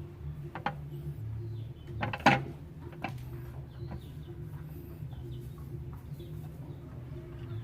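A steady low hum, with a few sharp knocks or clanks, the loudest about two seconds in, and faint bird chirps.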